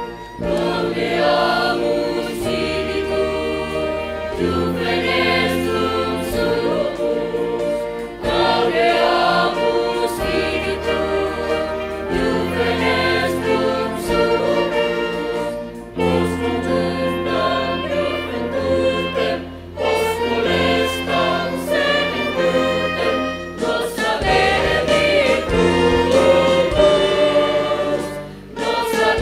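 Music: a choir singing in sustained phrases over orchestral accompaniment.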